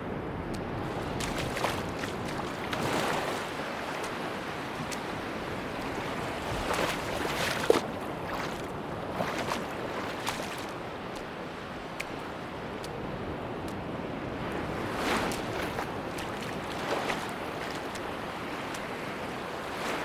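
Sea waves washing onto a beach: a steady surf hiss with irregular surges as waves come in, a sharper splash about eight seconds in.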